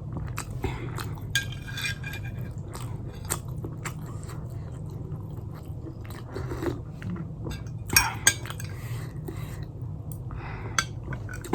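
Close-up chewing and biting of pan-fried momos dipped in jhol chutney: wet mouth clicks and crunching, with a few clinks of dish or cutlery. Two louder clicks come about eight seconds in. A steady low hum runs underneath.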